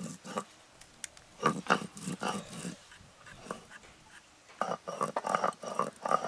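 Curved hand blade scraping the skin off taro corms in short rasping strokes: a few strokes, a pause, then a quick run of strokes near the end.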